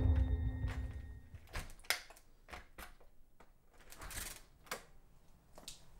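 Sustained horror score fades out over the first second or so. Then a string of faint clicks and knocks from a front door being unlocked and opened: a key working the lock and the knob turning, with a longer scuffing sound about four seconds in.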